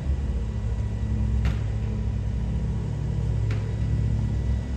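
Garbage truck's engine running with a steady low rumble, with two short sharp knocks about two seconds apart.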